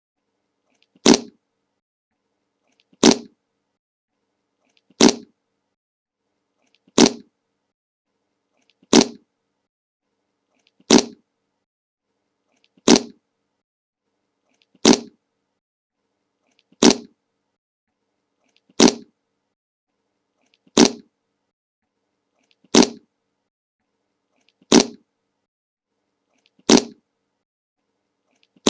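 The 'le monke' meme fart sound effect, a short fart played over and over on a loop. The same brief burst comes about every two seconds, each sharp at the start and fading quickly.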